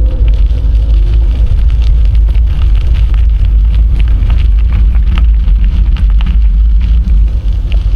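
Wind buffeting the microphone of a camera on a moving bicycle, a loud steady low rumble, with scattered clicks and crackles from the ride.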